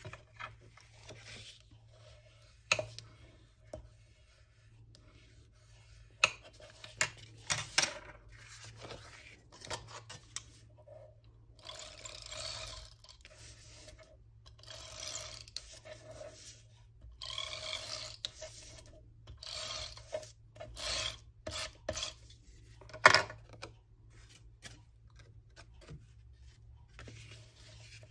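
Handheld adhesive tape runner drawn in short strokes across the back of a cardstock panel, laying down glue: several scraping passes of about a second each, with a faint steady tone under them. Between the passes the paper is handled with light taps, and one sharp tap late on is the loudest sound.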